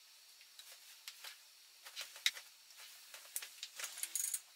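Faint, scattered clicks and light taps of small plastic food-colouring tubes being handled and squeezed over glasses of water, coming more often in the second half.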